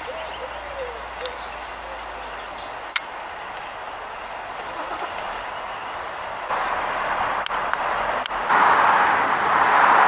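Steady rushing outdoor background noise with a few faint bird chirps and a couple of soft clicks; the rushing gets louder about six and a half seconds in and again near the end.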